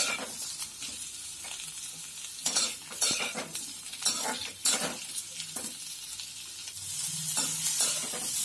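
Chopped onions sizzling in hot oil in a kadai, stirred with a perforated steel ladle that scrapes and knocks against the pan again and again. The sizzle grows louder near the end.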